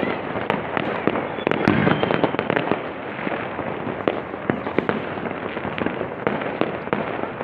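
Many fireworks going off at once: a dense, continuous crackle with frequent sharp bangs, several a second.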